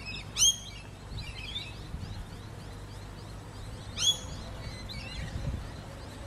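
Birds calling outdoors: two loud, short chirping calls, about half a second in and about four seconds in, with fainter chirps between, over a steady low background rumble.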